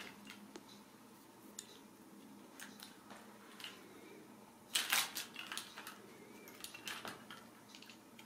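Faint scattered clicks and rustles of a wand cat toy being dangled and batted by Ragdoll kittens on a rug, with a short louder flurry of rustling about five seconds in, over a faint steady hum.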